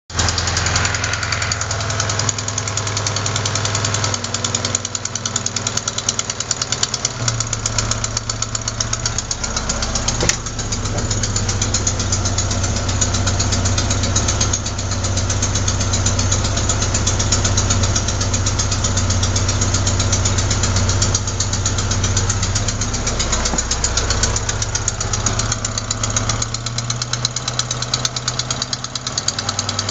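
Opel Ascona engine idling with a fast, even ticking knock, caused by a leaking exhaust manifold gasket at cylinder 4 rather than by the valve lifters. One sharp click about ten seconds in.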